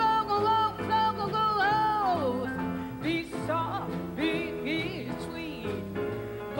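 A woman singing a swing jazz song, holding a long note that bends downward about two seconds in, then singing shorter phrases. She is backed by a small jazz group of piano, upright bass and drums.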